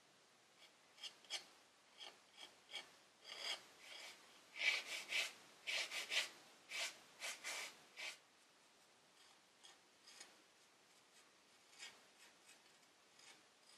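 Hand scraping and rubbing on the painted wood of a chair's back post: short strokes of a pointed hand tool and a fingertip working the surface. The strokes come sparsely at first, bunch into a louder run in the middle, then thin out to a few light scrapes.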